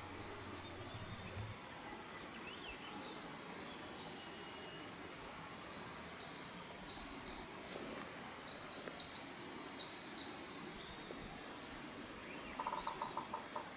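Faint outdoor ambience with short, high-pitched chirps repeating through most of it, and a quick run of lower-pitched pulses near the end.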